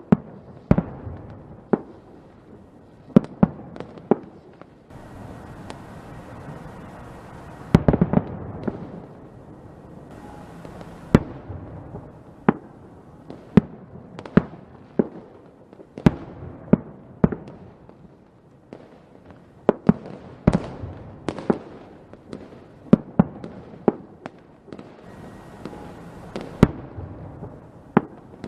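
A fireworks display: many sharp bangs at irregular intervals over steady crackling, with a thick cluster of bangs about eight seconds in.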